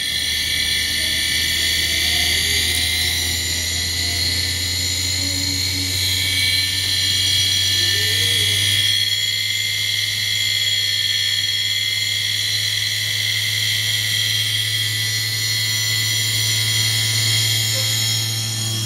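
Hard-disk spindle motor, driven by a self-oscillating Stingo motor circuit, spinning its platter with a steady low hum under a high whine. The whine's pitch shifts a little about six and nine seconds in as the speed control is turned.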